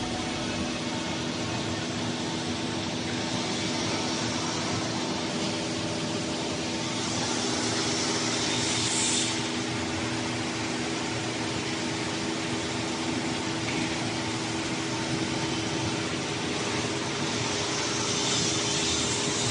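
5-axis CNC wood router running, its 16 kW water-cooled spindle giving a steady machine hum and hiss as it cuts wood. A hissing swell from the cutting comes about eight seconds in and again near the end.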